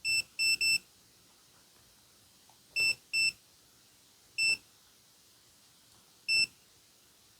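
Digital multimeter beeping: seven short beeps of one high steady pitch. Three come in quick succession at the start, two about three seconds in, one a little later and one near the end.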